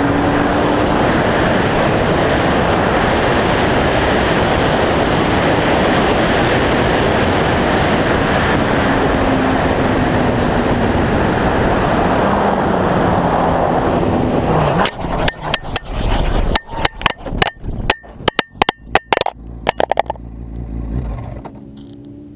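Motorcycle at speed on a race track: heavy wind and road noise with the engine's tone rising and falling underneath. About fifteen seconds in, the bike crashes, and a rapid string of hard knocks and scraping follows for about five seconds as it tumbles and slides across the asphalt. Then a brief grind and a sudden drop to a low steady hum.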